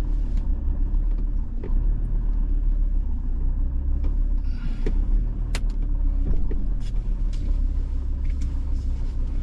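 Road vehicle driving along: a steady low rumble of engine and tyres, with scattered small clicks and knocks, the sharpest about five and a half seconds in.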